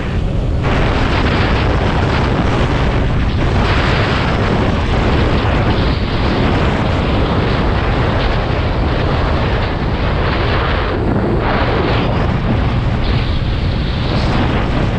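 Wind buffeting the microphone of a camera on a moving scooter: a loud, steady rumble and rush that eases briefly a few times.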